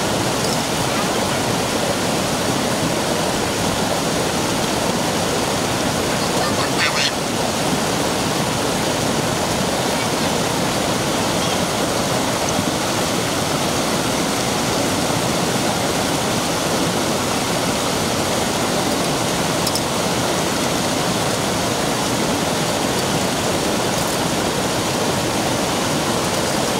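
Small stream cascading over rock slabs: a steady rush of water without a break.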